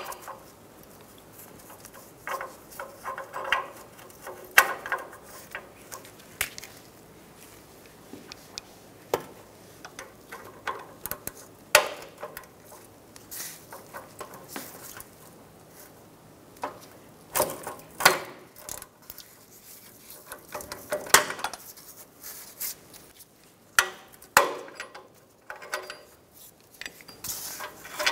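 Scattered metallic clinks and clicks of a ratchet and oxygen sensor socket fitted over the downstream O2 sensor in the exhaust pipe and turned to loosen it, with short runs of clicks between quieter gaps.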